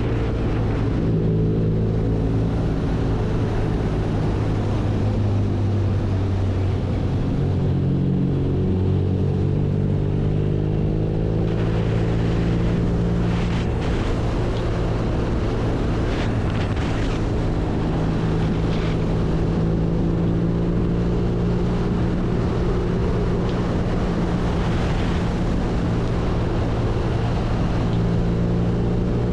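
BMW R nineT's air/oil-cooled boxer twin running steadily, its pitch holding level with only small rises and falls. A rush of wind noise lies under it, stronger from about twelve seconds in.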